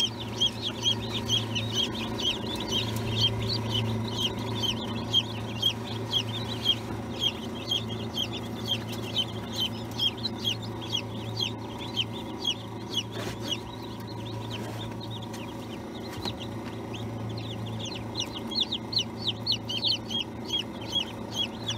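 Newly hatched chicks peeping: rapid, high, repeated calls, each falling in pitch, thinning out in the middle and picking up again near the end, over a steady low hum.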